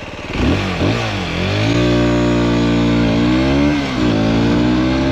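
Aprilia SX 125's single-cylinder 125 cc four-stroke engine accelerating hard from a standstill. The engine note climbs in pitch, falls back sharply at gear changes about three and four seconds in, then climbs again.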